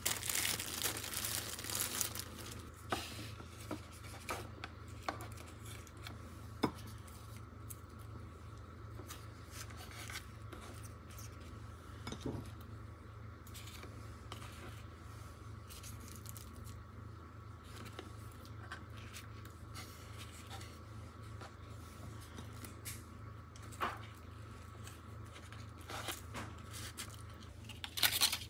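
Thin disposable plastic gloves crinkling for the first couple of seconds. Then soft taps and clicks as seaweed-wrapped rice balls are handled and set into a plastic lunchbox, over a steady low hum, with more crinkling near the end.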